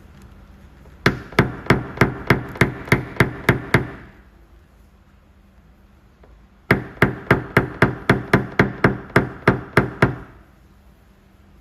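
Quick, even hammer taps on a car door panel during paintless dent repair, in two runs of about three to four taps a second, roughly ten in the first run and a dozen in the second.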